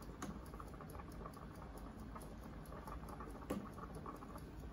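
A large steel pot of chicken rice porridge boiling, with a dense bubbling patter of small pops, as a ladle skims it. A single louder knock about three and a half seconds in.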